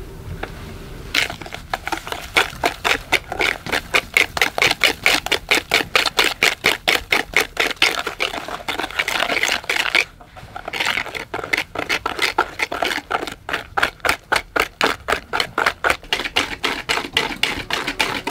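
Rapid, regular clicking or tapping, about four sharp strokes a second, with a short break about ten seconds in.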